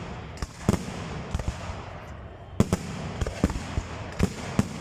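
Fireworks display: aerial shells bursting in about eight sharp bangs at irregular intervals, over a continuous low rumble.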